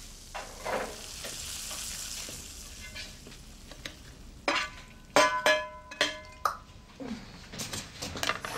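Kitchen clatter: a soft hiss, then a quick run of sharp clinks of utensils and dishes with a brief ring, about four and a half to six and a half seconds in, and a few lighter taps near the end.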